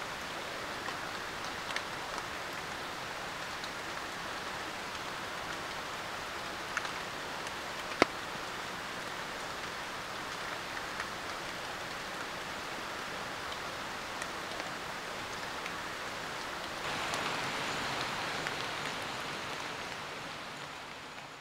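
Steady rain falling on a tarp-covered forest shelter, with scattered drips and one sharp tick about eight seconds in. The rain gets a little louder near the end, then fades out.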